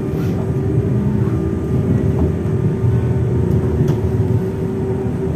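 SNCF Z 20500-series (Z2N) double-deck electric multiple unit Z 20781 running, a steady hum over a continuous low, uneven rumble.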